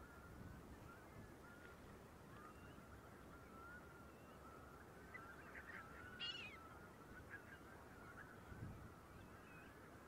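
Faint, continuous chatter of a large flock of coastal waterbirds calling. A louder cluster of calls comes about six seconds in.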